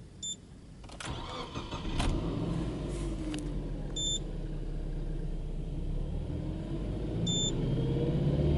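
Subaru Legacy Touring Wagon 2.0GT's turbocharged flat-four boxer engine being started from cold: the starter cranks for about a second, the engine catches about two seconds in and idles steadily, then its speed climbs toward 2,000 rpm near the end. Short electronic beeps sound at the start and twice during the idle.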